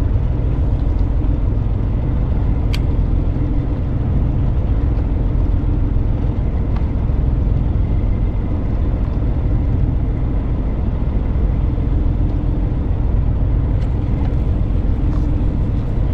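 Fishing boat's engine running steadily, a constant low drone with no change in speed.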